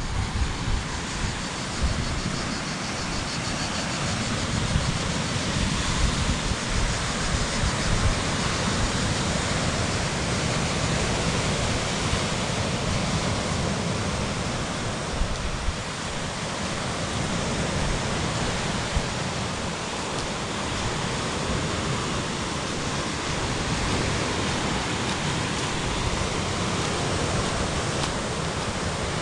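Steady rush of sea surf breaking on a rocky shore, with wind buffeting the microphone.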